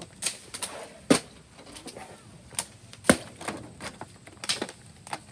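A series of sharp knocks, irregularly spaced about a second apart, the loudest ones about a second and about three seconds in.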